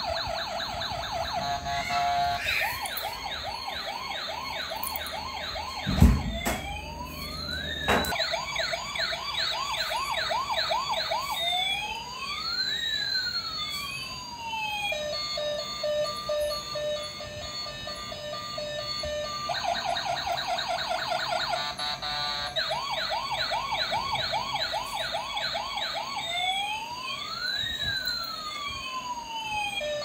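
Toy police car's electronic siren, switching between fast warbling yelps and slower rising and falling wails whose pitches cross each other. A sharp knock comes about six seconds in, with a smaller one about two seconds later.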